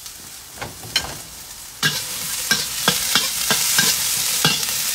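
Chopped onion and pepper sizzling in hot oil in a wok, with a metal utensil knocking and scraping against the wok as they are stirred, about three knocks a second. The sizzle jumps louder about two seconds in.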